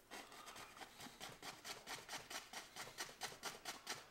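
A dry 2-inch paintbrush tapping lightly and steadily on an oil-painted canvas, about five soft taps a second, diffusing the paint at the base of a mountain.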